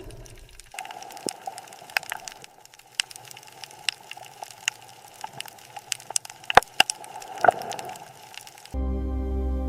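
Scattered sharp clicks and crackles over a steady hum, with two louder cracks in the second half; a sustained ambient music chord starts near the end.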